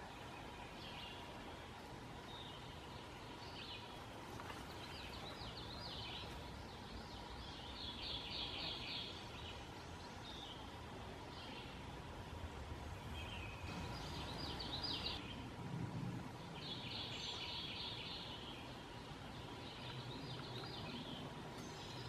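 Pileated woodpecker nestlings at the nest hole giving begging calls: repeated bouts of rapid, high-pitched chattering, each about a second long, strongest a few times in the second half.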